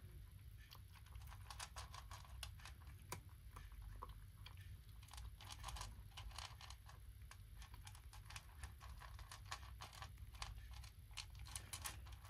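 A cat chewing and crunching dry food from a plastic bowl: faint, quick, irregular clicks.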